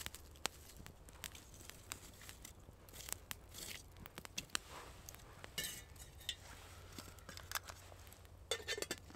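Light, scattered clinks and knocks of metal camp cookware and utensils being handled, with a short scraping rustle about six seconds in and a quick cluster of knocks near the end.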